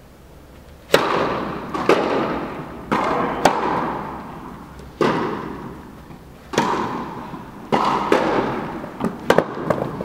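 Tennis rally on an indoor court: racket strikes and ball bounces as sharp pops about a second apart, each ringing on in the hall's long echo, with several quick ones close together near the end.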